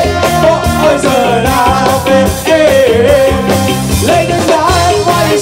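Live ska band playing a steady, loud groove: drums, bass, guitar and a lead melody line over the top.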